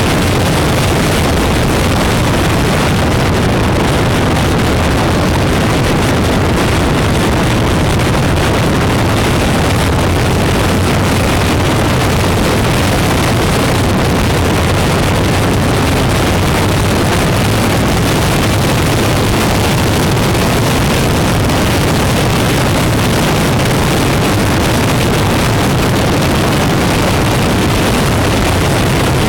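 Motorcycle cruising at a steady speed: its engine and the wind rush over the microphone blend into one loud, unbroken rumble.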